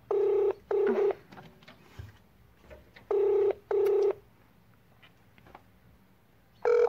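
Telephone ringback tone from a call that is not being answered: a steady pitched double ring, repeating about every three seconds, twice in full with a third starting near the end.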